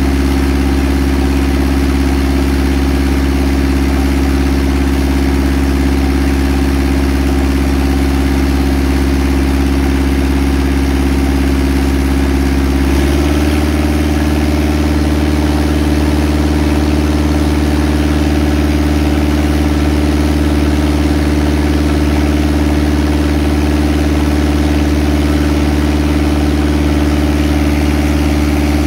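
Engine and deck-wash pump running steadily, with a high-pressure water jet hissing. The engine note steps up slightly about halfway through.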